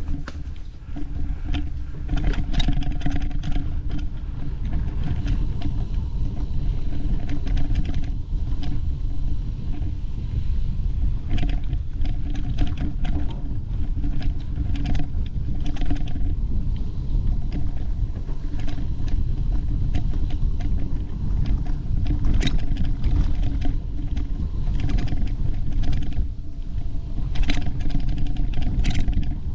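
Wind rumble on the camera microphone with the clatter and rattle of a bike jolting over a rough, rocky trail, in scattered sharp knocks throughout.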